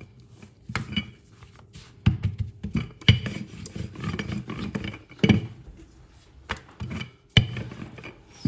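Wooden rolling pin rolled back and forth over paratha dough on a silicone pastry mat: a soft rubbing with a sharp knock every second or two as the pin comes down.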